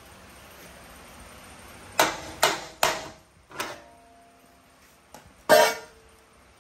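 A welded steel step-notch piece clanking against the steel truck frame as it is worked loose and lifted off. Four sharp metal knocks come about two seconds in, and a louder clank near the end rings briefly.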